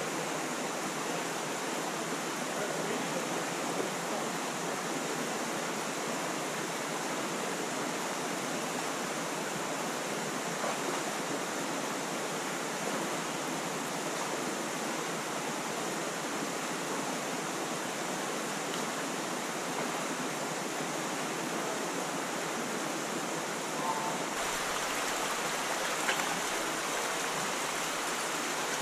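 Steady rush of running water from a stream in a rocky gorge, a continuous even hiss with no pauses; a faint low rumble joins near the end.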